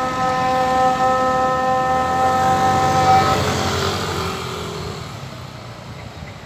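A steady, siren-like tone held on one pitch over the noise of road traffic, stopping about three seconds in. The traffic noise then fades away.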